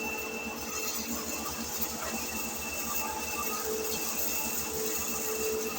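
Electric disc mill (maize grinding machine) running steadily, with a constant high whine over a fast, even mechanical pulsing.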